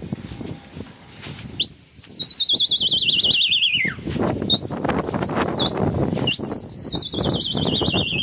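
Shrill whistle blown three times: a long warbling blast that slides down in pitch, a short steady one, then another long warbling blast falling in pitch. A low, uneven rumble runs beneath it.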